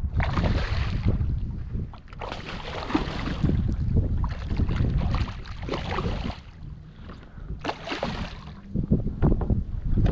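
Wind buffeting the microphone on a kayak, a constant low rumble, with several short bursts of splashing water noise.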